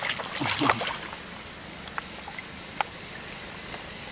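Water splashing for about the first second, as a small snakehead is pulled thrashing from the water on a casting line. A steady high-pitched whine and a few faint clicks follow.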